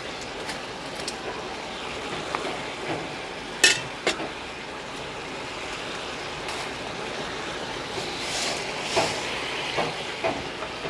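Water and masala bubbling in a kadhai, with two sharp knocks against the pan a few seconds in and a few lighter knocks near the end as the noodles go in and are handled.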